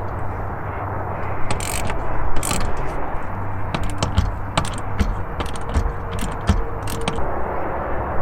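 A run of irregular mechanical clicks and scrapes, like parts or hardware being handled, over a steady low background rumble.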